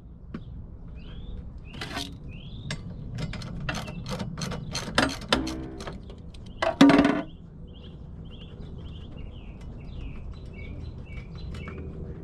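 Socket ratchet clicking as it works the 14 mm nut on a windshield wiper arm, a quick run of clicks through the middle, with two loud knocks about 2 s and 7 s in. Small birds chirp repeatedly throughout.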